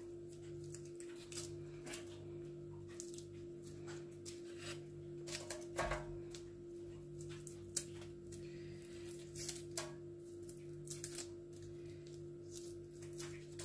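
Roasted garlic cloves being peeled by hand over a foil-lined tray: irregular soft crackles and clicks of papery skin and crinkling foil, over a steady low hum.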